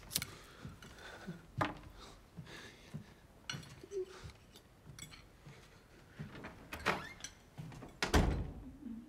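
Cutlery and china clinking and knocking at a dining table in scattered small clicks, with a heavier thump about eight seconds in.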